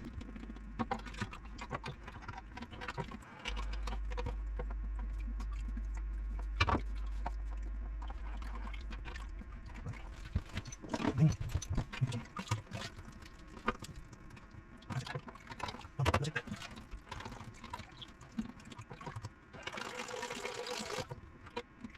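Toilet flush valve parts being handled and fitted: scattered clicks and knocks, with a short hiss near the end.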